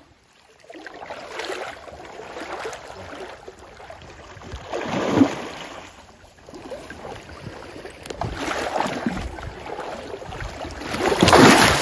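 Wading through a shallow river: water sloshing and splashing around the legs in uneven surges, loudest about five seconds in and again near the end.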